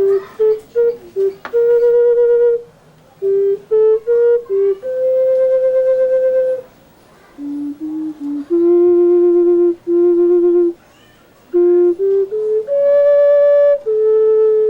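Clay ocarina played solo: a melody of clear, steady notes, quick short ones mixed with long held ones, broken by brief pauses between phrases.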